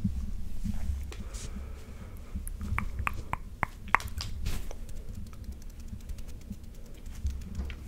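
Close-miked ASMR sounds: a quick run of sharp clicks and pops between about two and five seconds in, over soft, low handling thumps against the microphone.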